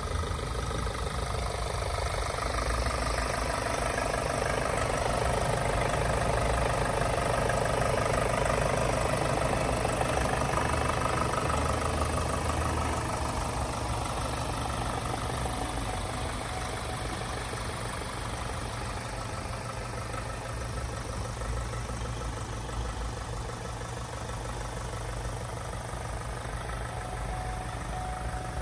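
Ford Transit Custom's 2.0-litre four-cylinder diesel engine idling steadily with its bonnet open, louder in the first half, then quieter.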